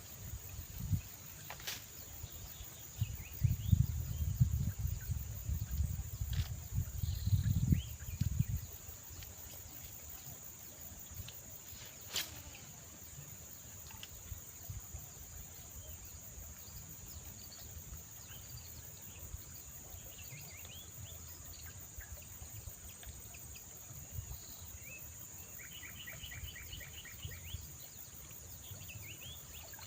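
A steady, high-pitched drone of insects, with faint bird chirps over it, including a quick run of repeated chirps near the end. For the first eight seconds or so a louder low rumble with thumps lies underneath.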